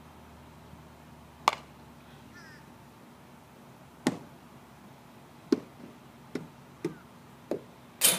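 Sharp knocks of a baseball bat and balls during practice: single knocks about a second and a half in and about four seconds in, four more in quick succession after that, and the loudest, with a ringing tail, right at the end.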